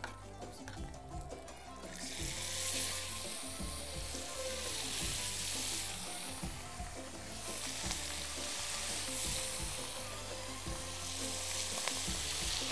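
Safi (rabbitfish) frying in hot oil in a pan: a steady loud sizzle that starts about two seconds in as the fish go into the oil, and carries on while they are turned with tongs.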